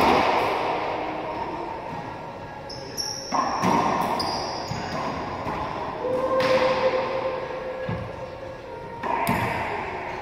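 Racquetball being played in an enclosed court: sharp smacks of racquet on ball and ball off the walls, a few seconds apart, each followed by a long ringing echo around the court. Short high sneaker squeaks on the hardwood floor come in between.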